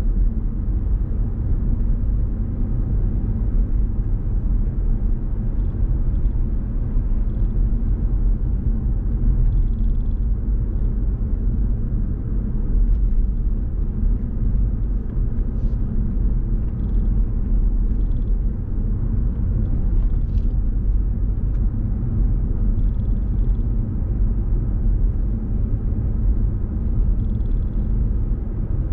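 Steady low rumble of a car driving along at road speed: tyre, road and engine noise, even throughout, with a few faint short high chirps or ticks over it.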